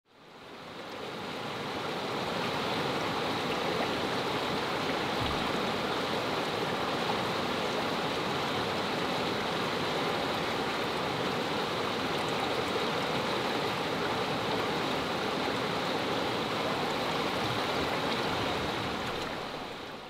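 Mountain stream rushing over rocks, a steady wash of water that fades in over the first couple of seconds and fades out near the end.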